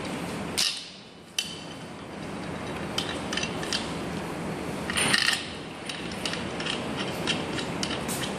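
Scattered metal clicks and clinks from hands working the handlebar fittings into an electric scooter's steel steering tube and handling Allen keys on a wooden bench, with a louder run of clinks about five seconds in.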